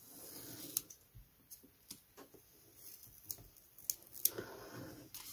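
Scalpel blade drawn along a steel rule through balsa sheet, stripping off a thin strip in several light passes: faint scratchy cutting strokes with a few sharp ticks.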